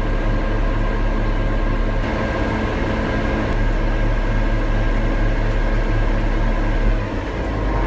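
Diesel engine of an Atlas Copco MT6020 underground truck idling steadily with a low hum, then shutting down about seven seconds in when the park-brake anti-idle timer runs out.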